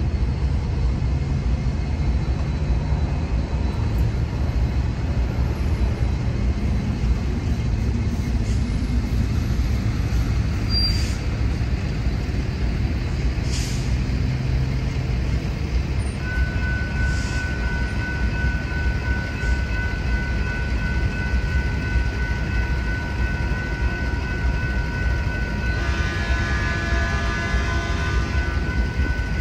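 Train rolling through a railroad crossing: a steady low rumble, with a few faint ticks. About halfway through a steady high ringing tone joins it and runs on, with more tones layered in near the end.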